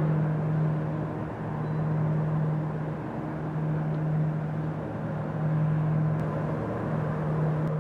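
Steady low engine hum of the CMA CGM Homere container ship passing close by, swelling and dipping every second or two over a rushing background noise.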